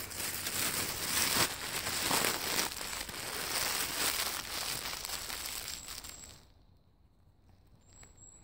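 Dry fallen leaves crunching and rustling underfoot for about six seconds, then dropping away to a faint rustle.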